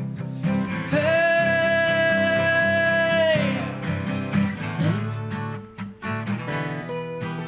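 Acoustic guitars playing a song, with a single long sung note held for about two and a half seconds from about a second in, its pitch falling away as it ends.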